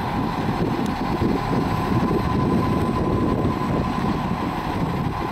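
Fire engine's diesel engine rumbling as the pumper passes close by, with a steady whine above the rumble.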